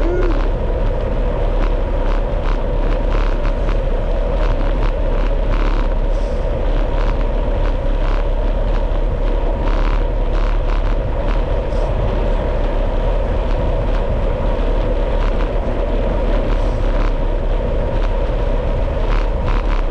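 Steady rushing wind noise on the microphone with a deep rumble, broken by frequent short knocks and rattles, as from moving fast downhill over rough ground.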